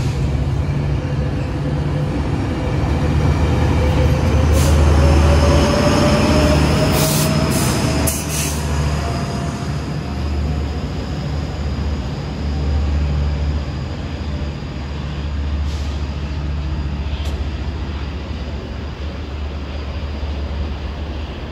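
A Metrolink push-pull train pulls away with its EMD F125 diesel locomotive passing close behind the cars. The engine drone throbs steadily under a whine that rises in pitch as the train gathers speed. It is loudest about five seconds in, with a few sharp clicks, then fades as the train pulls away.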